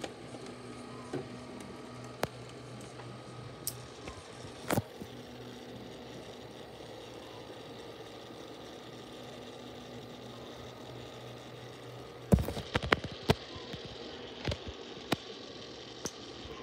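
Steady low electrical hum, with scattered light clicks and a short run of sharp knocks about twelve seconds in.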